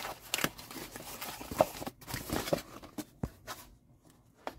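Cardboard shipping box handled and opened by hand: flaps scraping and rustling, with several sharp knocks and taps as the box is handled and the smaller box inside is lifted out. It goes quieter in the last second.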